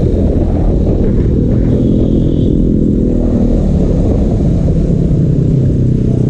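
KTM Duke 250's single-cylinder engine running while the bike is ridden, its pitch drifting up and down slightly with the throttle, over a low rumble.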